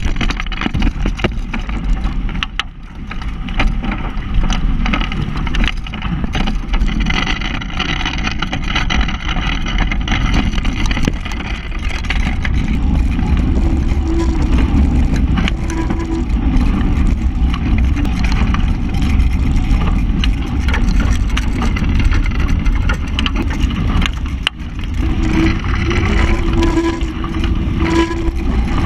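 Strong wind buffeting the action-camera microphone, over the rush and hiss of water spraying off the hull of a Hobie Cat 16 catamaran planing fast in high wind.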